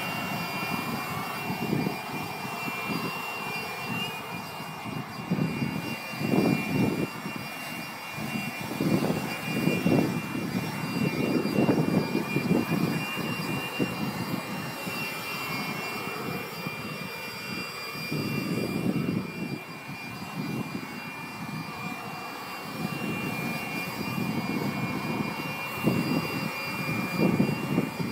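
Handheld leaf blower running with a steady high whine, its rush of air swelling and fading every second or two as it is swept over a horse's coat to dry-clean it.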